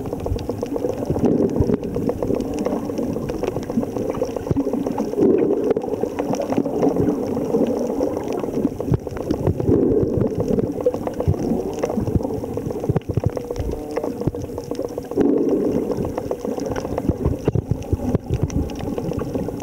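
Underwater sound picked up through a camera's waterproof housing: a steady, muffled rush and gurgle of water with bubbles and constant fine crackling.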